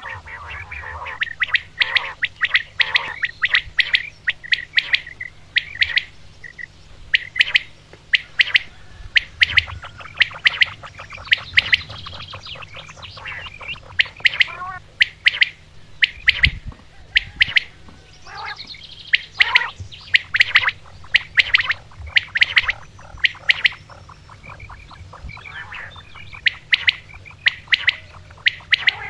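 Common quails calling: short, sharp, high calls repeated in quick clusters, over a low steady hum, with one low thump about halfway through.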